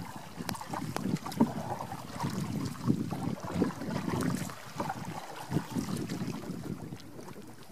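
Water sloshing and lapping against a canoe's hull as it is paddled, in irregular surges, with wind on the microphone and a few sharp taps.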